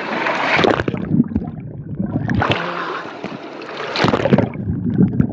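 Water splashing and sloshing around people bathing, in three surges, with water splashing over the camera about four seconds in.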